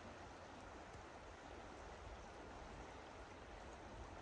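Faint, steady rush of the Lower Deschutes River's flowing water.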